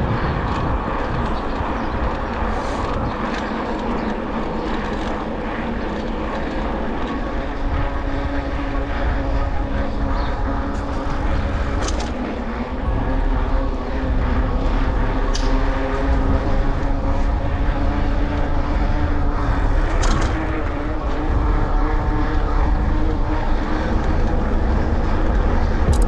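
Wind rumbling over the microphone while riding, with a steady motor drone whose pitch shifts slowly.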